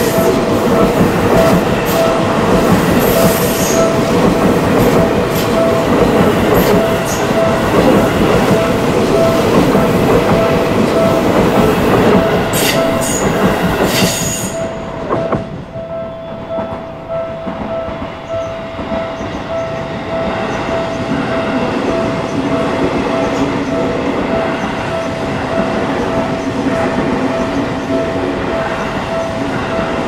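Seibu Railway electric commuter train passing close over a level crossing, its wheels clattering on the rails with a few short high squeals, while the crossing's warning bell keeps ringing in a steady repeating ding. About halfway through the passing train's noise falls away, leaving the bell over the quieter rumble of another train further off.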